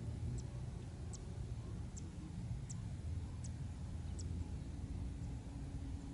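Low, uneven wind rumble on the microphone in open grassland. A short, high chirp repeats faintly about every three-quarters of a second and stops about two-thirds of the way through.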